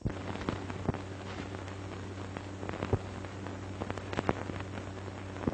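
Surface noise of an old optical film soundtrack: a steady low hum and hiss with scattered crackles and pops, a few of them louder.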